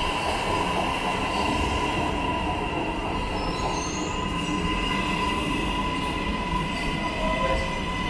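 Metro train moving past the station platform at low speed: a steady rumble of wheels on rail with a high, steady whine over it.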